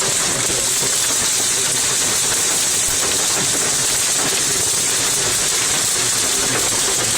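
Heavy rain beating down in a steady, unbroken hiss during a tornado-producing thunderstorm.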